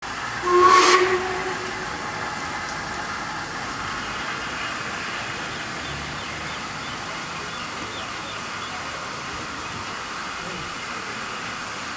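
Steam locomotive whistle: one short, loud blast about half a second in, with a hiss of steam, fading by about two seconds. A steady hiss follows.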